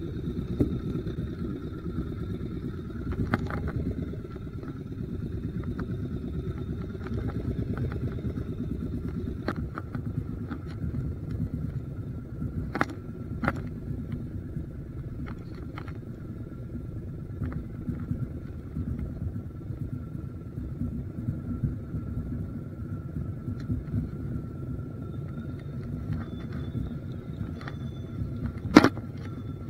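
Engine running steadily, a low rumble with a faint steady high whine over it. Scattered light clicks and knocks come through, the sharpest one near the end.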